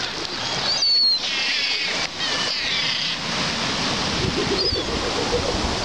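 Wind on the microphone over small sea waves, with gulls calling: a sharp high cry about a second in, a run of wavering calls after it, and a short cry near the end.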